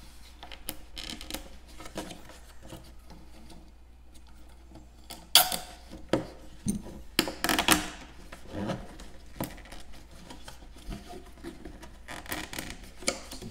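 Nylon zip ties being pulled tight through their locks: short rasping zips, with a run of louder ones a little past the middle. Plastic rubs and clicks as a PVC pipe is strapped against a plastic milk crate.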